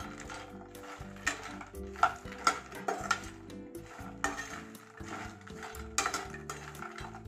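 Slotted metal spatula stirring fox nuts (makhana) frying in a little oil in a steel kadai: repeated scrapes and sharp clinks against the pan, the loudest a little after two seconds in and again around six seconds in. Background music plays underneath.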